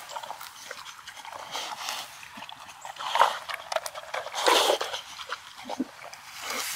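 Boxer dog sniffing along the ground in grass close by, with two louder breathy snuffles about three and four and a half seconds in.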